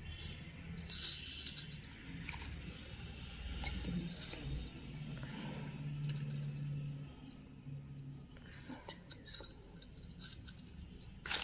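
Glass bangles clinking against each other now and then as they are handled, a scatter of light, short clinks.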